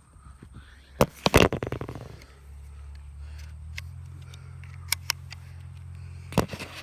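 Metallic clicks and a short clatter from the bolt action of a single-shot .22 rifle being worked by hand: a sharp click about a second in, a louder rattling clatter just after, then a couple of light clicks and another sharp click near the end.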